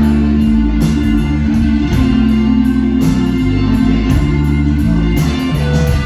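Live band playing a slow electric blues: electric guitar over keyboards, bass guitar and drums, with held notes above a moving bass line and steady cymbal strokes.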